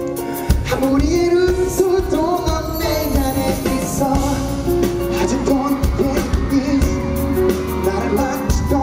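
Live pop concert music: singing over amplified music with a steady beat.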